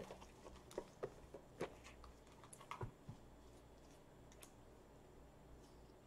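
Faint, scattered light clicks and taps, about eight in the first three seconds and one more later, over quiet room tone.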